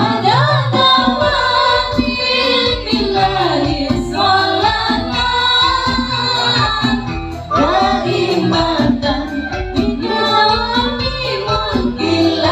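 A woman singing a devotional song into a microphone over a live ensemble with percussion and metallophones, amplified through a PA system.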